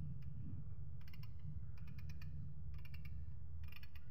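Light clicks in short clusters, about one cluster a second, from a hex bit socket on its extension being handled and turned in the fingers, over a steady low hum.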